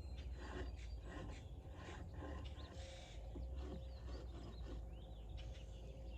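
Birds chirping in the background, with scattered light knocks and scrapes from handling wooden beehive frames and boxes.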